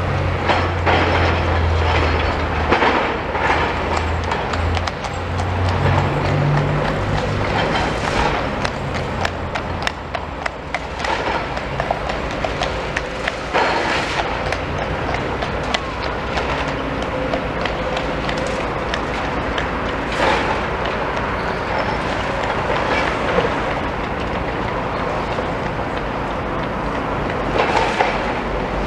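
Demolition excavator working: its diesel engine running, strongest in the first several seconds, with frequent clanks and crunches of rubble and metal being broken and moved.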